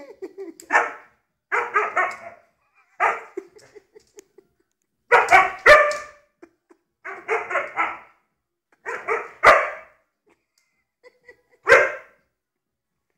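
Husky barking at a lighter in play, in about seven short bouts of a few barks each with pauses between.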